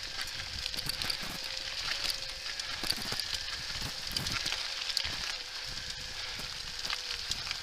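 Haibike Xduro SL 29er electric mountain bike ridden fast along a dirt trail: tyres crackling and hissing over grit and small stones with many small clicks and rattles, wind buffeting the helmet-mounted microphone, and a faint steady whine underneath.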